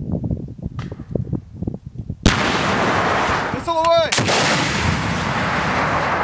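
TOW missile fired from a tripod-mounted M41A7 ITAS launcher: a sudden loud blast about two seconds in, followed by the missile's loud sustained rushing noise that slowly fades as it flies downrange.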